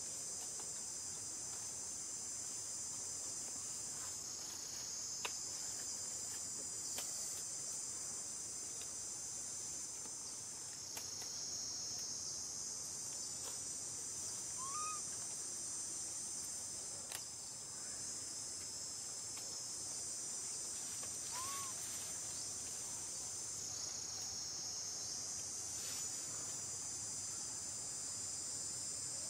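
Steady high-pitched chorus of insects shrilling. It has a few faint clicks and two brief faint chirps, one near the middle and one about two-thirds in.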